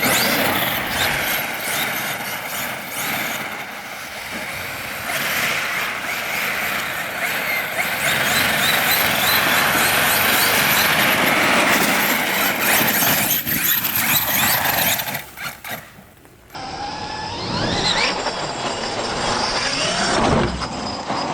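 Electric RC car driving hard: a steady rushing run of motor and tyre noise, then after a cut a second run with the motor revving up and down in pitch near the end.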